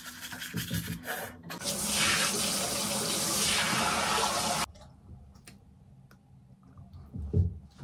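Tap water running for a few seconds, then shut off suddenly about halfway through. A few faint clicks follow.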